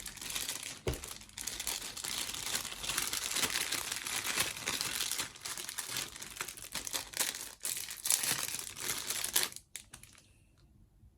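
Packaging crinkling and rustling with small crackles as a model-kit wheel set is taken out of its box; it stops abruptly about nine and a half seconds in.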